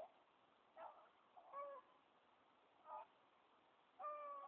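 Hunting hounds baying faintly: a string of short single-note bays, roughly one a second, typical of hounds running a rabbit.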